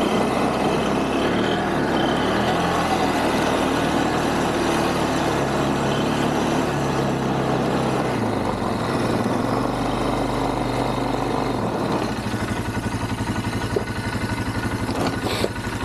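ATV (quad) engine running as it is ridden through snow. About twelve seconds in it settles to a steady idle as the machine stops.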